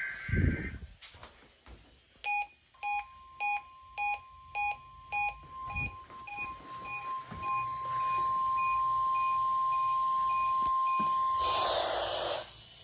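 NOAA Weather Radio receivers sounding a test alert. A receiver's alert beeper pips about one and a half to two times a second. Under it comes the weather radio warning alarm: a steady, single high tone of about 1050 Hz that starts faint, grows loud and cuts off sharply near the end, followed by a brief burst of hiss. A thump is heard just after the start.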